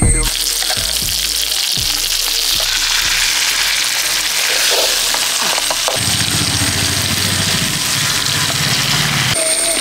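Marinated fish frying in hot oil in a pan, a steady sizzling hiss.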